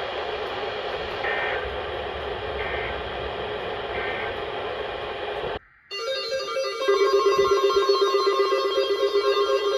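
Steady hiss with a short high beep about every second and a half, then a sudden cut. About six seconds in, several emergency alert receivers go off together, their steady alarm tones overlapping and warbling.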